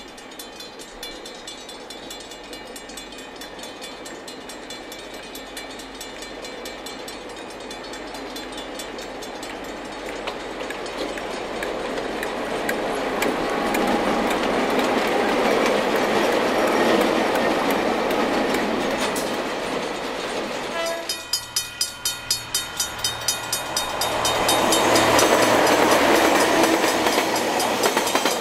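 Diesel-electric locomotives hauling a container freight train past, growing louder as they approach and draw level. Partway through, a second passing train's wagons click over the rail joints in an even rhythm of about four beats a second before the locomotive noise swells again.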